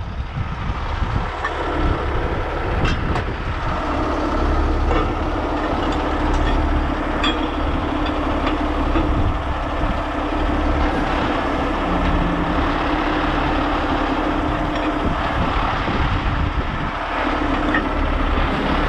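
Diesel engine of a heavy rotator tow truck running under load as its hydraulic winch takes up the lifting cables, with a steady hum through the middle, plus scattered light clinks of chain and rigging.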